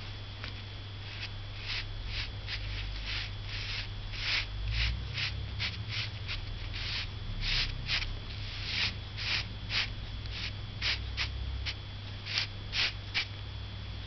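Nearly dry ink brush scratching across paper in many short, quick strokes, the dry-brush texture of falling water in a Chinese ink painting. A steady low hum runs underneath.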